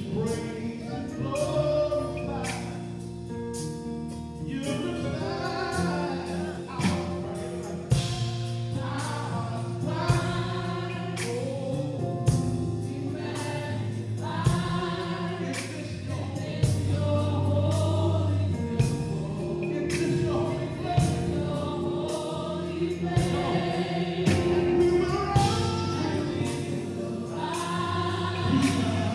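Gospel praise team singing live with a band: several voices in a choir-style sound over guitar and keyboard, with a steady driving beat.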